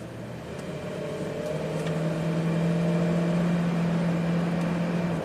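2002 Dodge Ram 1500's 5.9-litre V8 accelerating, heard from inside the cab: a steady engine hum that grows louder over the first few seconds and then holds. It pulls smoothly with full power, its distributor now correctly synced to the crank.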